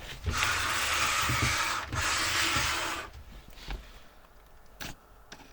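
Rubbing and scraping noise of computer parts and packaging being handled, in two long stretches, followed by a few light clicks.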